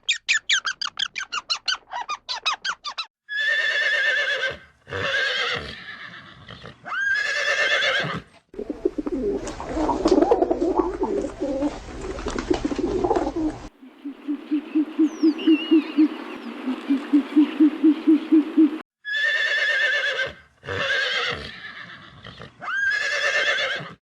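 A horse neighing and whinnying: a fast shaking call, then a string of separate pitched neighs, some rising at the end. The middle of the clip holds other animal sounds: a rough noisy stretch, then a low call pulsing about three times a second with a few bird chirps over it. Near the end the same neighs come again.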